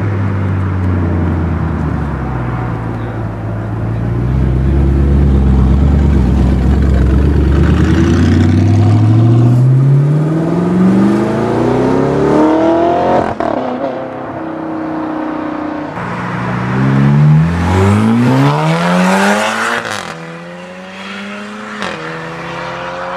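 A performance car's engine rumbling low, then accelerating hard, its pitch climbing through the gears with upshifts about 13 and 20 seconds in.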